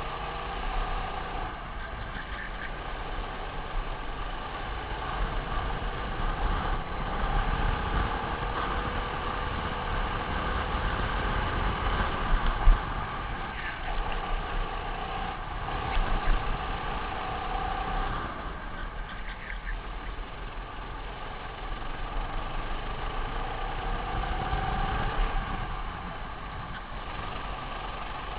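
Racing kart engine heard on board, running steadily under load, its pitch rising and falling as the kart accelerates and lifts off through the corners. A few brief loud knocks come about twelve seconds in.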